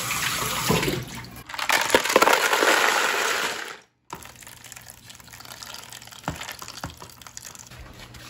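Kitchen tap running hard into a bowl at the sink, filling it with cold water, then cutting off abruptly. After that it is much quieter, with a few light clinks of ice cubes.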